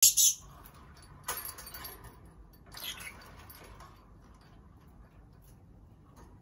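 A rosy-faced lovebird in its wire cage: a few short, sharp, high-pitched sounds, a loud pair at the very start, another just over a second in and one near three seconds.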